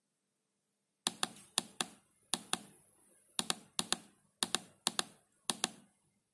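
Push-buttons on an SCO2 handheld digital oscilloscope clicking as they are pressed one after another to step through its menu. About seven presses start about a second in, each giving a quick pair of clicks.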